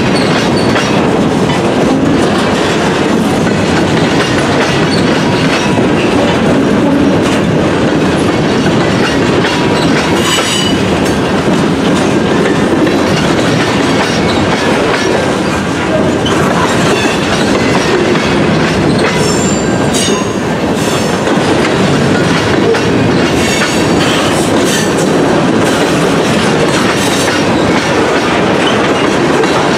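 Freight train of covered hoppers and tank cars rolling past close by: a steady loud rumble of steel wheels on rail with clickety-clack from the trucks, and a few short high-pitched squeals from the wheels.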